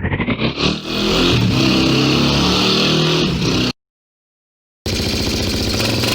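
Motorcycle engine sound effect for a Transformers-style transformation: the engine pulses quicken and rise in pitch as it revs up, then it runs at a steady high rev. About two thirds of the way in it cuts off abruptly, leaving a second of silence before it starts again.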